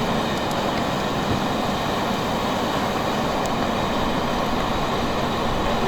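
Fire trucks' engines running steadily, an even mechanical noise with no breaks.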